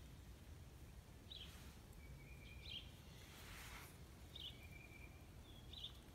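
Faint bird calling over and over, a short chirp paired with a thin steady whistle, about every second and a half, over a low rumble of outdoor background noise. A brief soft hiss comes near the middle.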